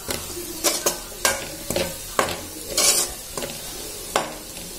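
Metal spoon scraping and stirring diced vegetables and masala around a metal pan, in uneven strokes about two a second, over a steady sizzle of frying.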